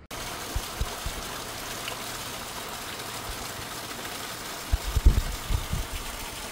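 Heavy rain pouring down, a steady even hiss, with a few low thumps on the microphone, the loudest cluster about five seconds in.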